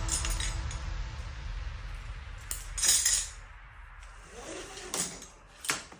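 Music fading out, then a few sharp metal clinks: one about three seconds in and another near the end.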